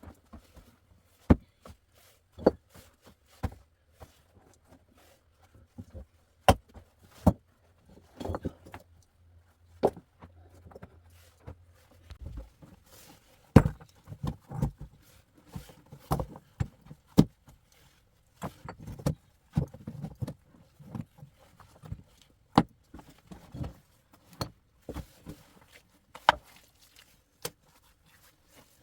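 Irregular sharp knocks and clicks, with some duller thuds among them: hard objects being handled and set down, a second or so apart.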